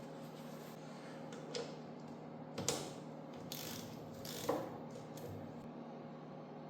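A few separate metallic clicks and clacks, like a ratchet or tools worked on the small Honda ATC70 engine, over a steady low hum. The loudest come about two and a half and four and a half seconds in.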